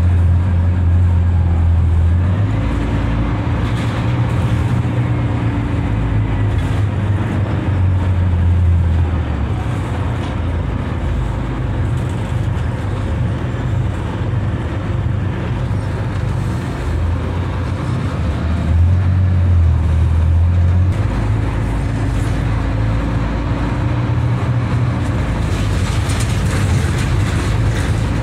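Scania K280UB bus's diesel engine running, heard inside the cabin as a steady low drone, the engine note climbing twice as the bus accelerates.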